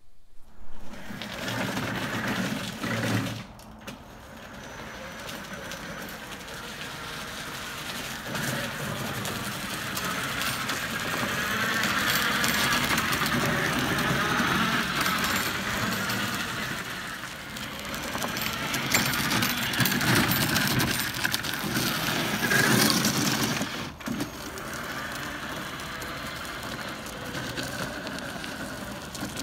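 Homemade utility vehicle platform driven by corded electric drill motors, running and rattling along gritty, slushy pavement. The noise rises and falls as it moves and breaks off sharply about 24 seconds in.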